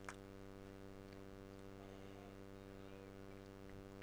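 Near silence with a steady electrical mains hum in the recording, and one sharp click right at the start.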